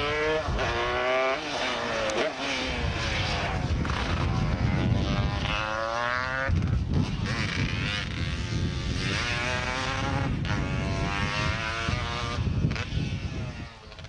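Two-stroke racing scooter sidecar outfits pulling hard uphill. The engines rev up through the gears, the pitch climbing repeatedly and dropping back at each gear change, as one outfit after another goes by.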